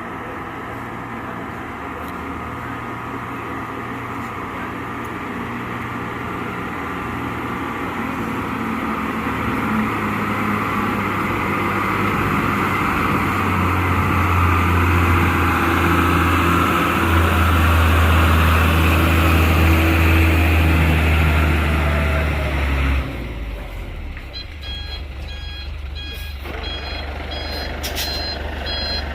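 Heavy truck's diesel engine running and growing steadily louder over about twenty seconds, then dropping away suddenly. A quieter engine follows, with an electronic reversing beeper sounding in a quick repeated pattern near the end.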